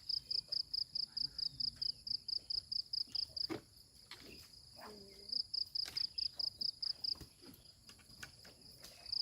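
Cricket chirping in a fast, even series of high chirps, about six a second, breaking off for a couple of seconds in the middle and again near the end. Faint voices and small knocks sound underneath.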